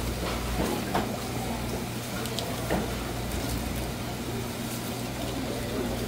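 Tap water running steadily into a plastic basin of water, with a few light knocks on the cutting board.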